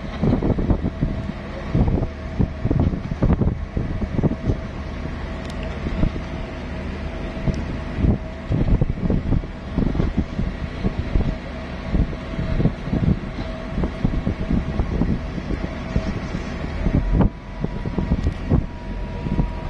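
Wind buffeting the microphone in irregular gusts over the steady drone of a workboat's engine. A thin steady tone joins the drone about seventeen seconds in.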